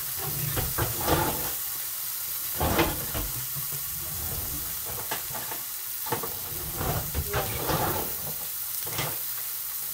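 Dry-aged ribeye steak searing in a cast iron skillet: a steady sizzle broken by scattered crackles and pops of spitting fat.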